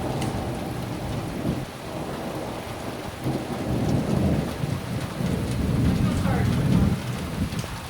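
Heavy rain falling steadily through a thunderstorm, with low thunder rumbling that swells about four seconds in and again near the end.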